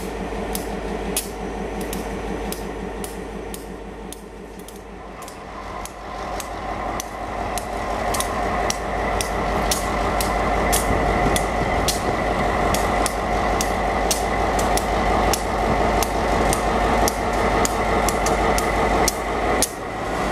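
Diesel locomotives at a grade crossing: first a GP9rm switcher's engine running nearby, then the engine of an SD-M leading a grain train, growing louder from about five seconds in as it approaches. A run of sharp clicks, about one or two a second, goes on throughout.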